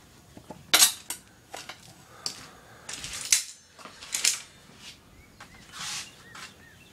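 Irregular light metallic clinks and knocks, about a dozen spread over several seconds, with a short scraping rustle near the end.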